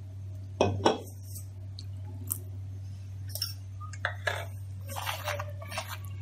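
Two sharp knocks just under a second in, then a small wire whisk scraping and clinking against a plastic bowl as gram-flour batter is beaten with yogurt and water.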